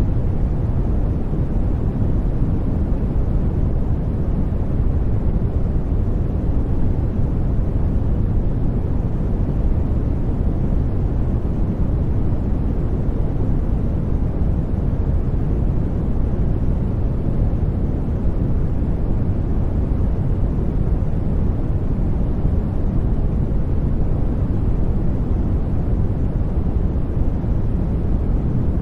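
Steady, unbroken study noise, with no tones, clicks or changes: a deep, even hiss weighted toward the bass with little treble.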